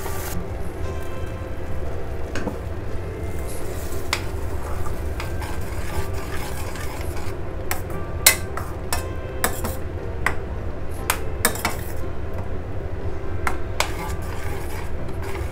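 Metal spatula stirring thick dal in a stainless steel pan, with scattered sharp clinks of metal on the pan, most of them in the second half, over a steady low hum.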